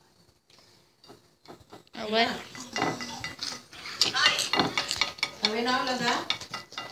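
Metal fork clinking and scraping on a ceramic plate, at first quietly on its own; from about two seconds in, loud voices join in over the clinking.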